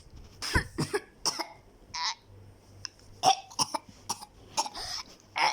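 A person coughing over and over: a long run of short, sharp coughs, some coming in quick pairs.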